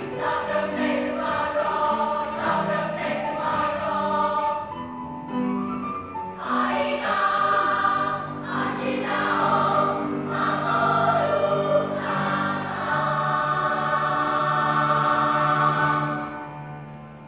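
Children's choir singing in parts, closing the song on a long held final chord that fades out about sixteen seconds in.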